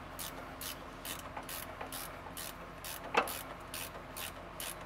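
Hand ratchet wrench being worked back and forth on a long engine-mount bolt: a steady run of short, high clicking strokes about four a second, with one sharper knock about three seconds in.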